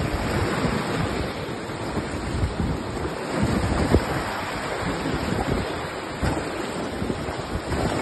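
Rushing whitewater of a fast mountain river around an inflatable raft, a steady roar, with wind gusting on the phone's microphone.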